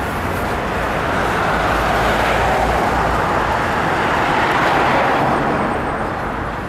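Steady road traffic noise, swelling to a peak about five seconds in as a vehicle passes, then easing off.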